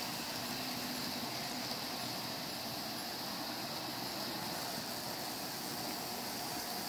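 O gauge model trains running on three-rail tubular track: a steady rolling noise of wheels on the rails and electric motors, with no breaks.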